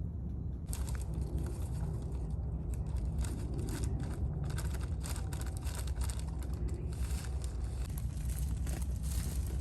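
Wind rumbling on the microphone, with dense crackling and rustling that starts about a second in and keeps going.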